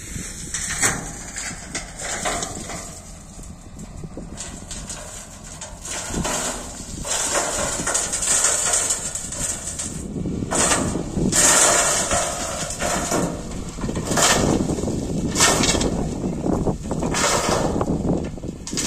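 Caterpillar 140GC motor grader at work on a road, with irregular clattering and scraping that comes in surges, louder in the second half, over a low rumble.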